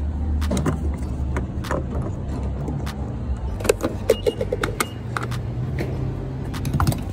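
Fuel pump nozzle being handled at a car's filler neck: scattered metal clicks and clatter, with a quick run of clicks about four seconds in, over a steady low hum.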